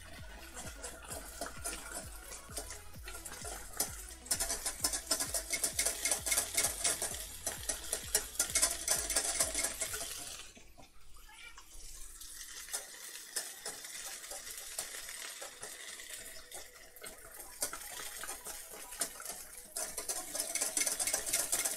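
Wire whisk beating instant mashed potato in a metal saucepan, a fast run of scraping clicks against the pot that is loudest from about four to ten seconds in, pauses briefly, and picks up again near the end. Sausages sizzle faintly in a frying pan alongside.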